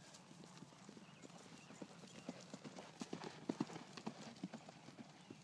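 Faint hoofbeats of a pony cantering on a grass and dirt track, growing louder from about two to four seconds in as it passes close by.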